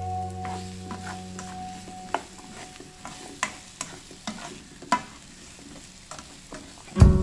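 A spatula stirring cubed zucchini and onion in a stone-coated nonstick wok: irregular knocks and scrapes of the spatula on the pan over a faint sizzle.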